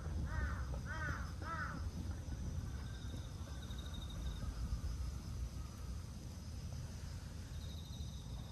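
A crow cawing, a quick run of about four caws that stops about two seconds in, over a steady low outdoor rumble. A faint high trill comes twice, near the middle and near the end.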